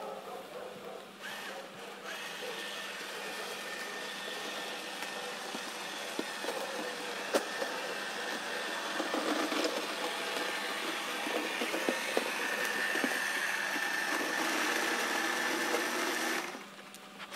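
Small electric motor of a radio-controlled model boat whirring steadily, growing louder as the boat comes closer through the broken pool ice, with a few light ticks. The sound drops away about a second before the end.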